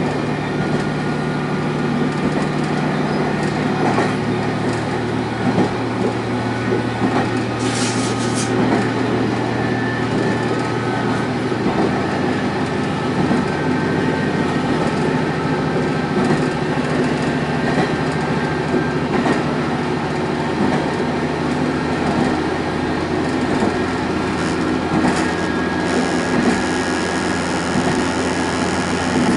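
Single-car diesel railcar running along the line, its engine and wheels on the rails giving a steady drone. The engine note changes about twelve seconds in, and there is a short hiss about eight seconds in.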